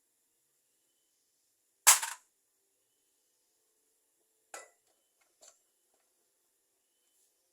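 One loud, sharp clack of hard parts knocked or set down about two seconds in, followed by two lighter clicks, as gearbox parts are handled on the bench.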